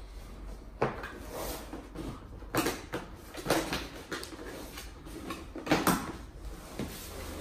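Cardboard box being handled and opened: a string of knocks, scrapes and rustles as the box is moved about and its flaps are worked open.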